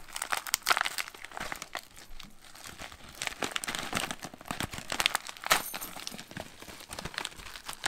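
Plastic MRE snack pouch of hot and spicy cheese crackers crinkling as it is handled, in irregular rustles with a few sharper crackles.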